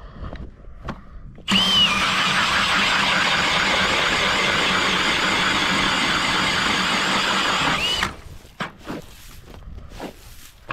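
Cordless drill driving an ice auger through lake ice. The motor whines up about a second and a half in, runs steadily while the auger cuts, and winds down about eight seconds in. Scattered crunches of ice chips and snow follow.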